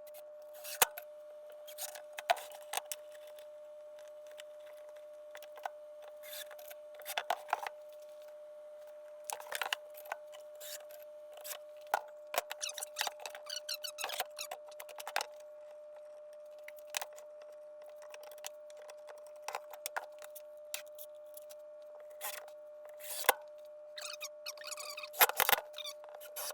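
Irregular clicks and knocks of wooden parts and hand tools being handled, some in quick clusters, over a steady faint hum.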